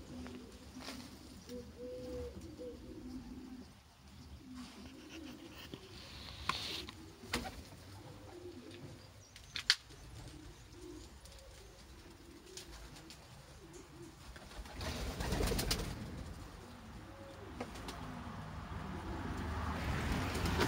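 Domestic pigeons cooing: low, wavering coos, repeated, with a few sharp clicks in the middle and a burst of rustling about three quarters of the way through.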